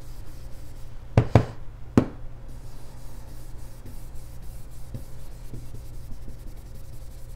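Soft, steady rubbing and scratching of a blending brush swirled over cardstock, working ink onto the paper. Three sharp taps come about one to two seconds in.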